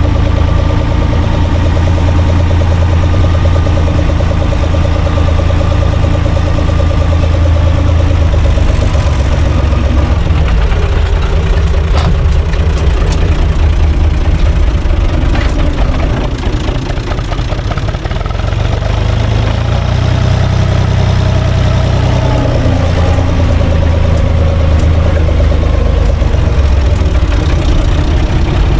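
UTB 445 4x4 DT tractor's diesel engine running as it drives, heard from inside the cab. The engine eases off and gets quieter past the middle, then picks up speed again.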